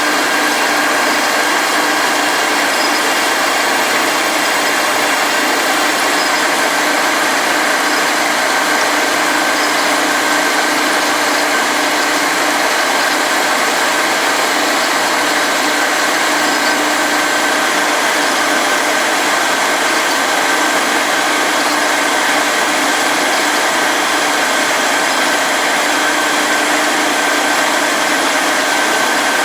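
4-axis CNC milling machine running a semi-finishing pass: steady spindle and cutting noise with a constant high whine, unchanged throughout.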